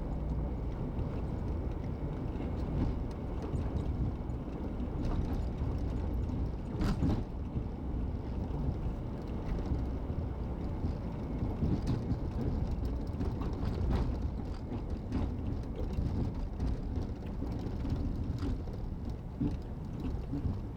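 Steady low rumble of a car driving at road speed, heard from inside the cabin: engine and tyre noise, with a few brief knocks from the road now and then.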